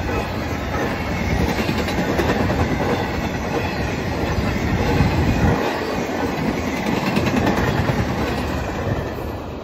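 Norfolk Southern double-stack intermodal train rolling past a grade crossing, its wheels clacking over the rails in a steady, loud rumble. The sound drops off near the end as the last cars go by.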